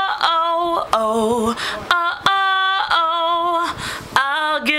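A woman singing wordless held vowel notes, several long sustained tones in a row, the last one wavering with vibrato near the end.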